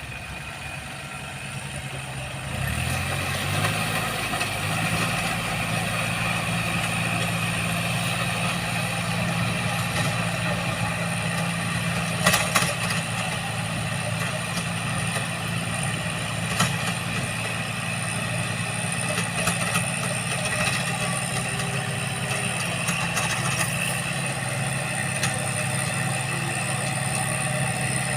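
Heavy vehicle's engine idling steadily, coming up louder about three seconds in, with a couple of sharp clicks around twelve seconds in.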